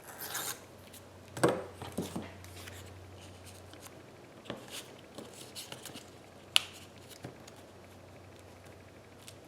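Paper being handled and trimmed by hand: short rustles in the first two seconds, then scattered light clicks and one sharp click about six and a half seconds in.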